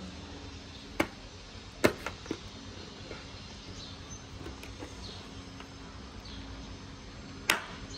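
A few sharp plastic clicks and taps from a helmet visor being fitted and pressed into its side pivot mechanism: a cluster of them about two seconds in and a louder one near the end, over a faint steady hum.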